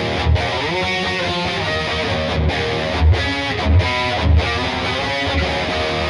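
Washburn XM STD2 electric guitar played with a distorted tone: sustained notes with slides in pitch, broken by several short, heavy low hits.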